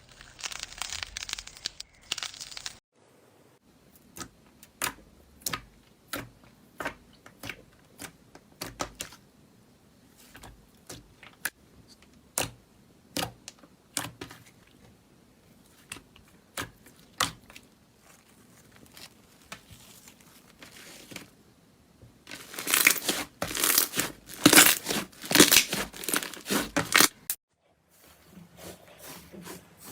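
Slime being played with, making sticky clicks and pops. It starts with a stretch of crackling, then has separate sharp pops about one or two a second. About 22 seconds in comes a louder, dense run of crackling that cuts off abruptly.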